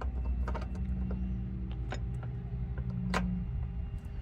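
A few sharp metal clicks and knocks as a socket wrench is worked onto a hood latch nut behind a Jeep Wrangler JK's headlight, over a steady low hum.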